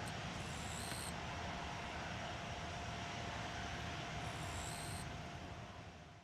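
Boeing 787-8's Rolls-Royce Trent 1000 jet engines heard as a steady distant rumble and hiss as the airliner climbs away after take-off, fading out near the end. Two brief high chirps come once early and once late.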